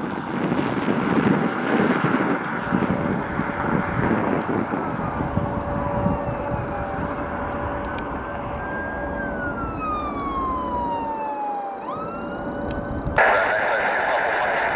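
Jet engine whine sliding slowly down in pitch over a steady rumble, with a fainter steady tone beneath it. The whine jumps back up near the end, and then a louder steady hiss cuts in abruptly.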